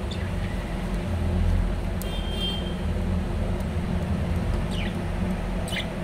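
A steady low rumble with a few short, high budgie chirps over it, two of them falling in pitch near the end.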